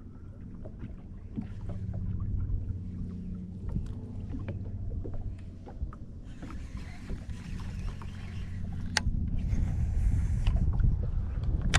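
Steady low hum of a small fishing boat's motor, with scattered light clicks and knocks. Two stretches of hiss come in about halfway through and near the end, and a low rumble grows louder toward the close.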